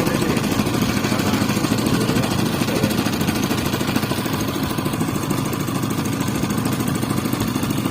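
A fishing boat's engine running steadily, with a fast, even chugging.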